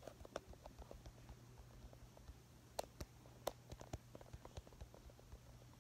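Near silence: faint, irregular clicks and taps from the phone being handled, with a few sharper ones in the middle, over a low steady hum.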